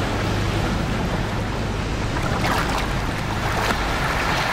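Water rushing and splashing against the hull of a moving inflatable boat, with wind and a low hum underneath; the splashing grows a little brighter around the middle.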